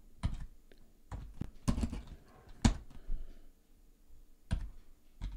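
Typing on a computer keyboard: about ten separate keystrokes at an irregular, hunt-and-peck pace.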